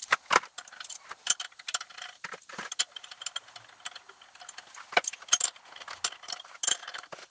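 Metal rocker arm studs and pushrod guide plates clinking and clicking as they are set by hand onto an aluminum small-block Chevy cylinder head: many short, irregular clinks, the sharpest about five seconds in.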